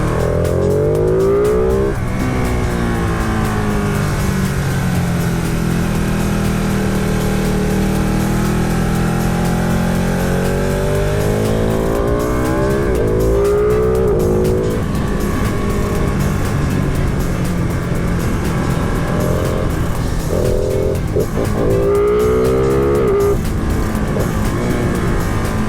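Motorcycle engine revving up and falling back repeatedly as the bike accelerates and slows through tight bends, with steady wind rush.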